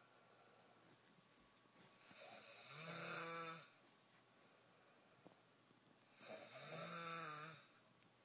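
A man snoring: two long snores about four seconds apart, each a pitched drone with a hiss over it, lasting nearly two seconds.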